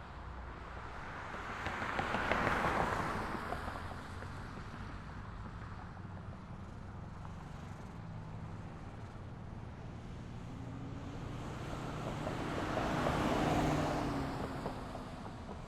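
Street traffic: two vehicles drive past, one swelling up and fading about two seconds in and another near the end with an audible engine hum, over a steady low rumble of road traffic.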